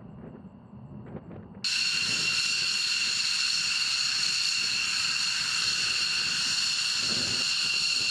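F-15 fighter jet's twin jet engines running on the ground, a loud, steady, high-pitched whine with hiss that starts abruptly about two seconds in.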